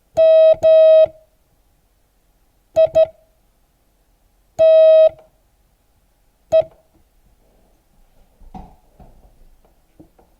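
A Morse code beep tone sending the word MITE slowly, one letter at a time with long gaps between letters: dah-dah, then dit-dit, then a single dah, then a single dit.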